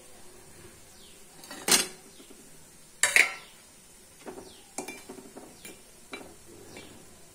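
A metal perforated slotted spoon (jhara) clanking against a metal kadai while jalebis fry in oil: two loud clanks about one and a half and three seconds in, then several lighter taps.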